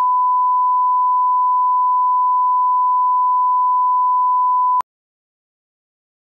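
Steady 1 kHz sine-wave reference tone, the line-up tone that accompanies colour bars. It cuts off abruptly about five seconds in, leaving digital silence.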